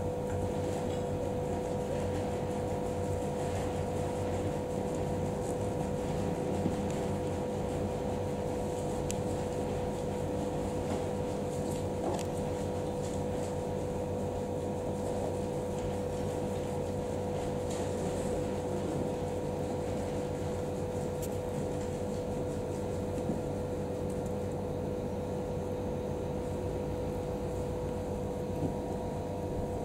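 Steady mechanical room hum with a held mid-pitched tone running under it, and a few faint ticks.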